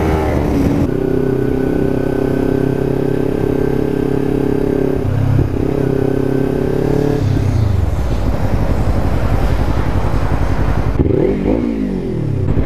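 Kawasaki Ninja 300 parallel-twin with an Akrapovic exhaust, running steadily for several seconds. Near the end it is revved in quick rising and falling blips, rev bombs.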